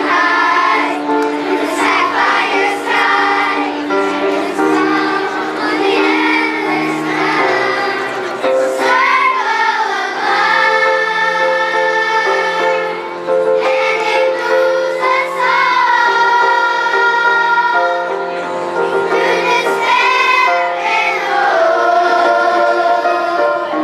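Children's choir singing a song with instrumental accompaniment, the voices holding long notes over a steady bass line.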